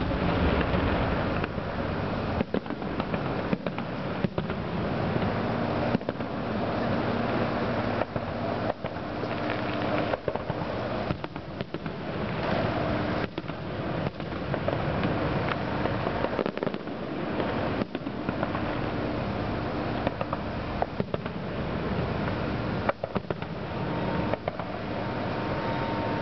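Aerial fireworks shells bursting one after another: a dense, continuous run of bangs with no break.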